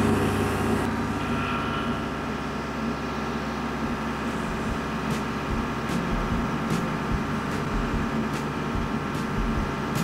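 Kubota L47 tractor's diesel engine running steadily while it backs slowly under load, hauling the lifting rope through a pulley. A few faint ticks sound in the second half.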